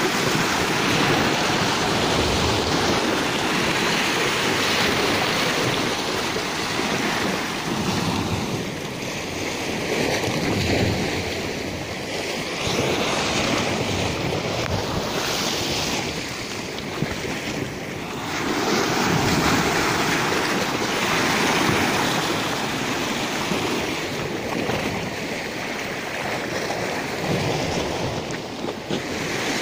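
Caspian Sea waves washing against a rocky shore, the surf swelling and easing every few seconds, with wind on the microphone.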